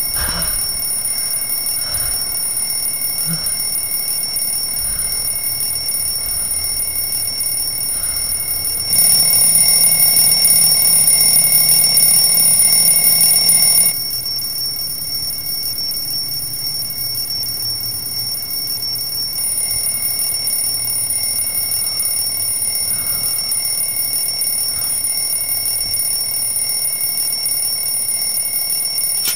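Alarm clock ringing on without a break as a steady high-pitched tone, louder for about five seconds in the middle.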